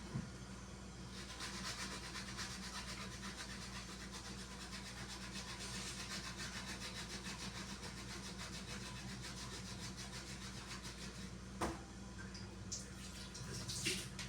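Hand scrubbing a surface with quick, even rubbing strokes, as in wiping down a refrigerator while cleaning it, with one sharp knock near the end.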